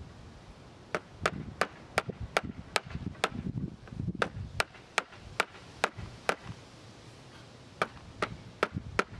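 Mallet tapping a wooden chair rail, a steady run of sharp knocks about two or three a second, with a short pause midway. The taps drive the glued dowel joint apart, where the old glue has let go.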